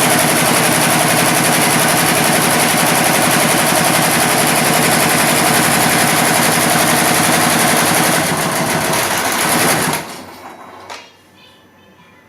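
Computerized embroidery machine stitching at speed, a loud, fast, even needle clatter. It changes about eight seconds in and stops about ten seconds in, followed by a single click.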